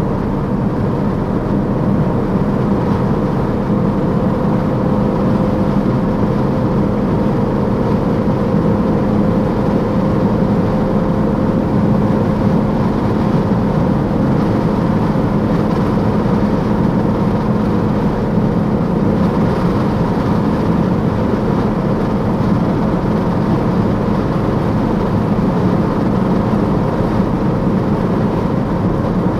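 Peugeot 308 GTi driving at a steady speed, its engine note holding one even pitch under constant road and wind noise.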